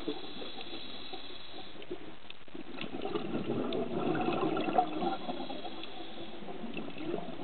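Underwater sound recorded through a dive camera's housing: a scuba diver's exhaled bubbles bubbling, swelling from about three to five seconds in, with faint scattered clicks from the reef.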